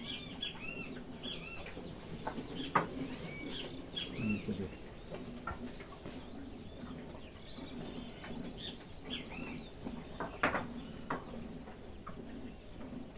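Many small birds chirping in quick short calls, with a few sharp knocks, the loudest about three seconds in and two more later on.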